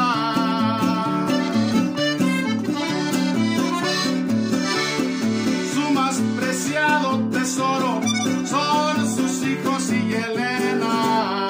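Instrumental break of a corrido: a Hohner Corona II button accordion plays the melody with quick ornaments over a steady acoustic guitar accompaniment.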